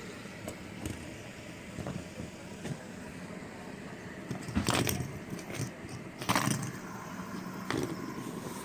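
Fidget spinners being handled: scattered light clicks and two louder rustling knocks over a steady low hum.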